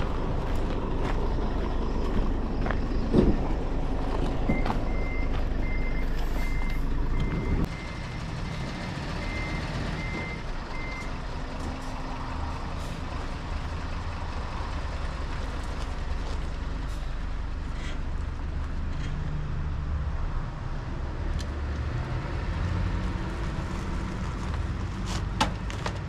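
Box truck's engine running, with its reversing beeper sounding a steady series of short, evenly spaced beeps for about six seconds, starting about four seconds in.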